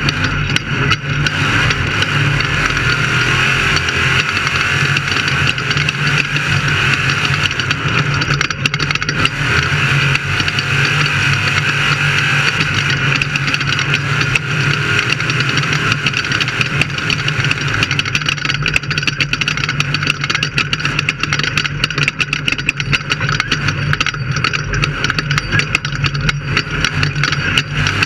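Off-road race vehicle's engine running hard at a steady pitch, with dense rattling and knocking over it.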